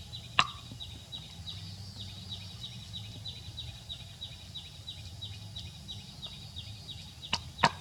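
Steady rhythmic chirping, about three short high calls a second, over a low hum. A sharp knock comes about half a second in, and two more come near the end.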